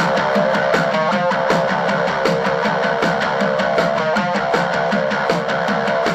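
Hard rock music: a strummed, distorted electric guitar riff over a drum beat.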